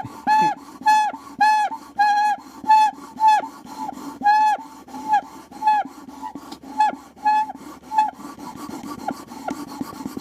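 Drinking straw squeaking in a quick series of short, shrill notes, all on about the same pitch and each dipping at its end, over a steady low rasp. The notes come about two a second at first, then grow shorter and more spaced out.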